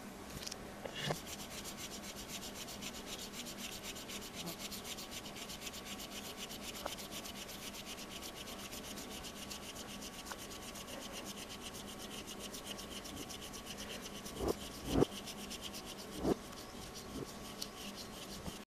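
Pencil scratching across a sheet of paper in quick, even strokes as letters are drawn, with a few sharper knocks about three-quarters of the way through.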